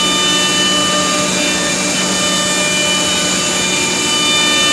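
Three-spindle CNC wood router running: a steady machine whine with several held tones over a dense cutting noise, unbroken throughout.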